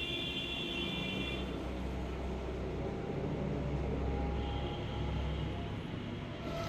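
Steady background rumble with faint high whining tones, one fading out about a second and a half in and another appearing later.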